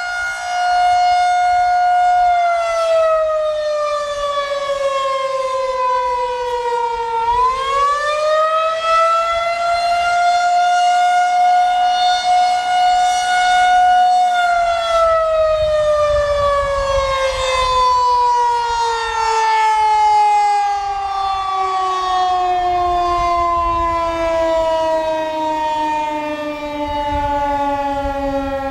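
Federal Signal 2001-130 rotating single-tone outdoor warning siren sounding a full attack signal. Its wail holds, drops over about five seconds, climbs back and holds. About halfway through it begins a long, slow fall to a much lower pitch as the siren winds down, with the loudness swelling and dipping as the turning horn sweeps past.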